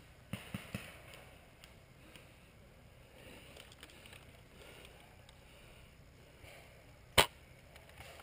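Quiet outdoor background with a few soft knocks near the start, then a single sharp, loud crack about seven seconds in.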